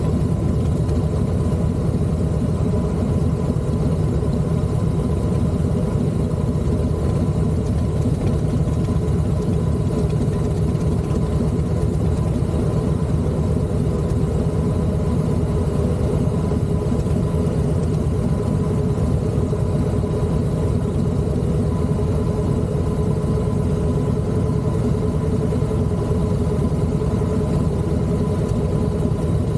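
Steady running noise of a vehicle ride on the road: a constant low rumble with a faint, even hum above it and no change in pace.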